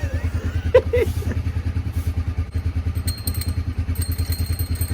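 1999 Chevy Cavalier's 2.2-litre four-cylinder engine idling steadily with an even low pulse, freshly filled with new oil and warmed up.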